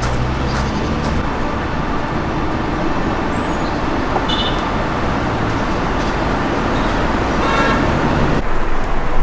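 Steady noise of road traffic passing, with a brief car horn about three-quarters of the way through.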